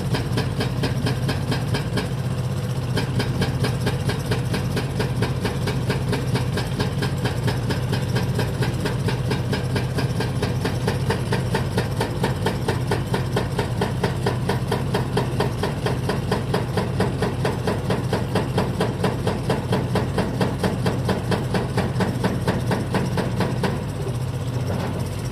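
Diesel engine of heavy machinery running steadily at idle, with an even, rapid clatter.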